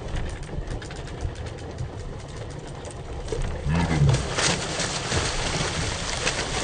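Boat engine idling steadily, then from about halfway through a hooked yellowfin tuna splashing and thrashing at the surface as it is gaffed beside the hull.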